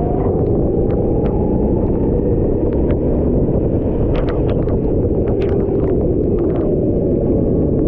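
Rental racing kart's small engine running under way with a dense, steady rumble, its pitch creeping slowly upward over the first few seconds as it picks up speed. Short ticks and crackles sit over it.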